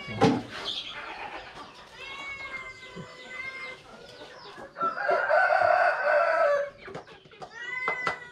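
A rooster crowing once, a long call about five seconds in, with shorter chicken calls before and after it. A sharp knock right at the start is the loudest single sound.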